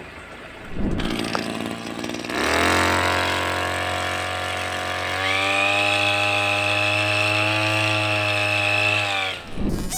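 Small engine of a motorized backpack sprayer running steadily at high speed, driving the pump for the spray lance. A high whine joins it about halfway, and it cuts off shortly before the end.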